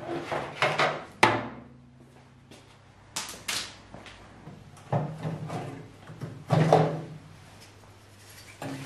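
Irregular clicks, clunks and rattles of the cut wiring loom and its clips being pulled off the underside of a MINI R53 hood with pliers. A cluster of sharp knocks comes in the first second and a half, the loudest followed by a brief low ring from the panel, then scattered clunks every second or two.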